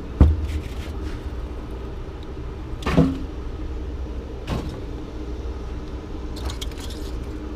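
Steady low vehicle engine running, with a few clanks of scrap aluminum-copper radiators being unloaded: a loud knock just after the start, a ringing metal clank about three seconds in, and a lighter knock a second and a half later.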